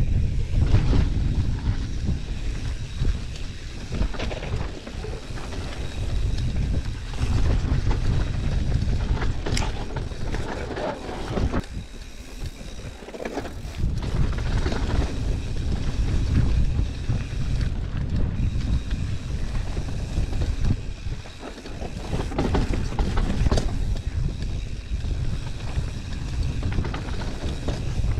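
Wind buffeting an action camera's microphone during a fast full-suspension mountain bike descent, with tyre noise on the dirt trail and scattered knocks and rattles from the bike over bumps. The wind eases briefly about twelve seconds in and again around twenty-one seconds.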